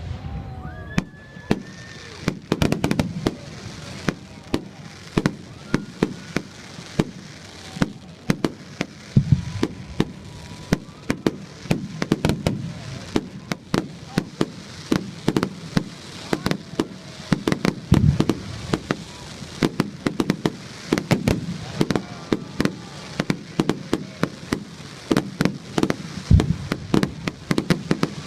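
Aerial fireworks display: a constant run of sharp bangs and crackling reports, with a deep boom from a large shell every eight or nine seconds.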